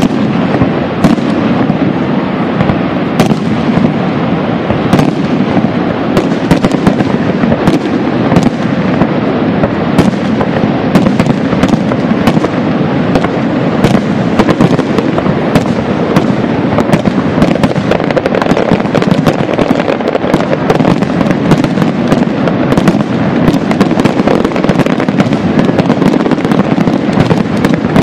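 Niagara Falls close up: a loud, steady rush of crashing water, dense with sharp crackles.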